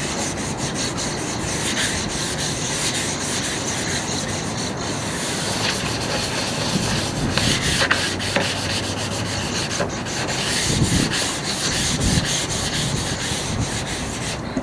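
A 220-grit sanding disc rubbed by hand over a primed car fender: a steady scraping scuff made of many quick strokes. The primer is being lightly roughed up.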